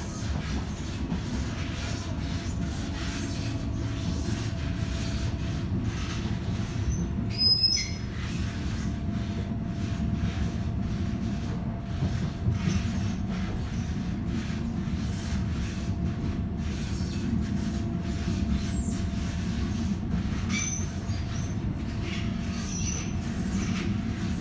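Electric commuter train running, heard from inside the carriage: a steady rumble of wheels on the track with a faint steady whine. A brief high squeal comes about seven and a half seconds in, and lighter squeaks follow near the end.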